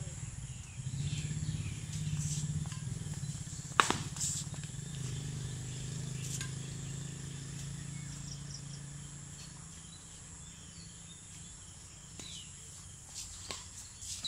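A badminton racket striking a shuttlecock gives a sharp smack about four seconds in, with a smaller hit just after and a few lighter ones near the end. Under it runs a steady high insect buzz, and a low hum through the first two-thirds fades out.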